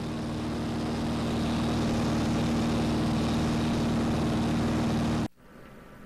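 Steady engine and propeller drone of a light propeller aircraft, heard from inside the cabin, with wind rush over it; it cuts off suddenly about five seconds in.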